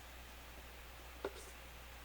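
A single short, light tap of a small object on a hard surface about a second in, over faint room tone with a steady low hum.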